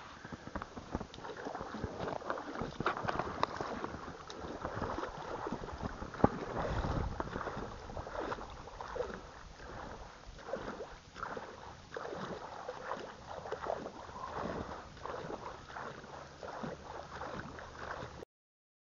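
Lake water sloshing and splashing right at the microphone as a person floats low in the water on an inflatable tube, in irregular uneven splashes. The sound cuts off abruptly near the end.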